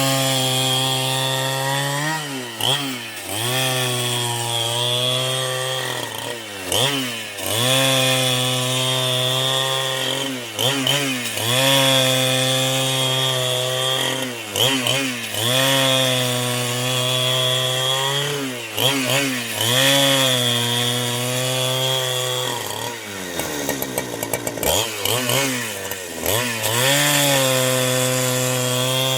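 Chainsaw running at high revs and cutting into a wood block. The engine note sags each time the chain bites under load and recovers every few seconds. About three-quarters through it drops toward idle, then revs back up.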